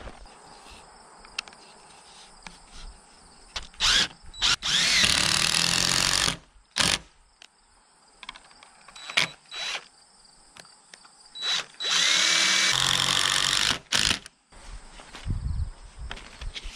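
DeWalt cordless impact driver driving a long screw through a wooden brace strip into a timber post. It runs in two bursts of about two seconds each, with short blips of the trigger before and after.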